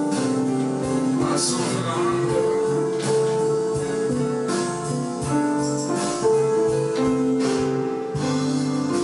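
Electronic keyboards playing a slow instrumental passage: held chords under a melody line that moves note by note, each note sustained for about a second.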